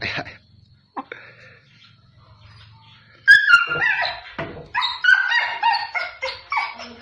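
An animal giving a rapid run of short, high yelping calls, starting about three seconds in, after a sharp click about a second in.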